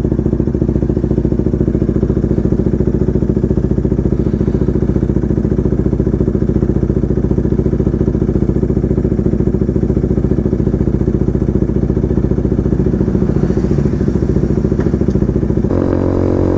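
KTM RC 250's single-cylinder engine idling steadily with an even, fast pulse; its note shifts about a second before the end.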